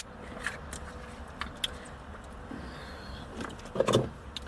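Low steady hum of a car cabin with a few small clicks early and a brief rustling knock near the end, like handling inside the car.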